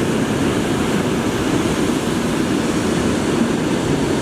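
Steady rush of surf breaking on a beach, mixed with wind noise on the microphone.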